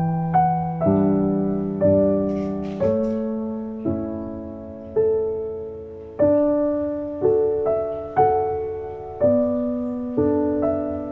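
Slow, soft solo piano music, with notes and chords struck about once a second, each fading away before the next.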